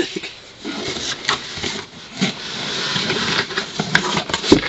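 Cardboard box being handled as a rooster is put into it: flaps rustling and scraping with irregular small knocks, and one sharp knock near the end.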